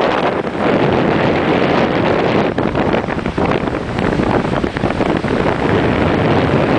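Strong wind buffeting the microphone over heavy surf breaking and washing up the beach, a loud, constant rushing roar.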